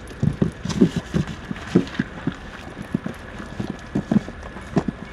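Small fish dropping out of a cast net into a polystyrene box and flapping against it: a run of irregular soft taps and thumps, several a second.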